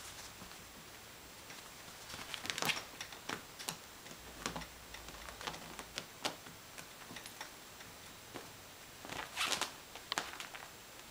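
Kittens' paws and claws scrabbling on a fabric office chair: irregular light taps and scratches, with two busier flurries, one about a quarter of the way in and one near the end.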